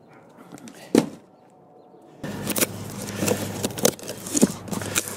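Cardboard boxes and packaging being handled: one sharp knock about a second in, then a run of rustles and clicks over a steady low hum.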